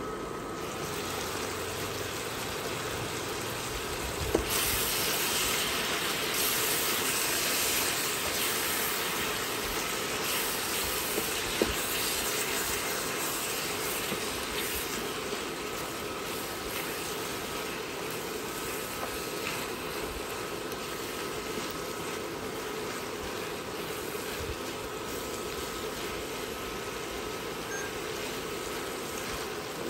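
Chayote slices sizzling and steaming in a wok, with a steady hiss that gets louder about four seconds in, as a silicone spatula stirs them. Two sharp knocks against the pan, about four and twelve seconds in.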